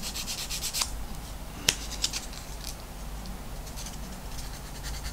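Edge of a small 3D-printed plastic part being rubbed down with an abrasive in fast, short scraping strokes, taking the shine off the gluing surfaces and removing the print tabs. The strokes pause in the middle for a few sharp clicks, the sharpest about a second and a half in, then start again near the end.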